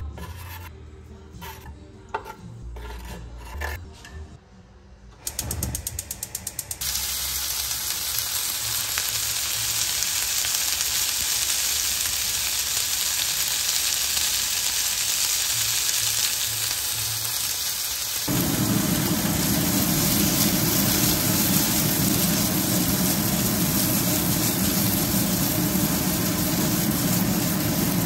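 A few light knocks and a short run of quick, even clicks, then food frying in a pan with a steady sizzle. About two-thirds of the way through, a deeper rushing sound joins the sizzle and it grows louder.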